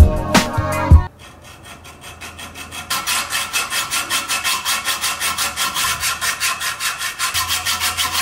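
Background music with a beat stops about a second in. A hand hacksaw then saws across a metal scooter handlebar tube in quick, even back-and-forth strokes, faint at first and steadily louder from about three seconds in. The saw makes slow headway through the tube, which the worker puts down to a cheap hacksaw.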